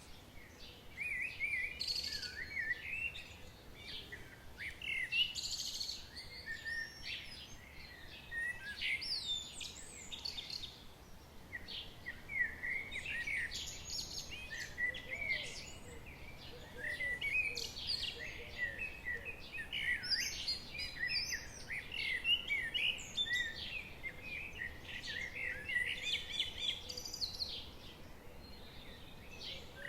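Several songbirds singing and chirping together in a dawn-chorus-like mix of quick warbling phrases and chirps, over a faint steady background hiss.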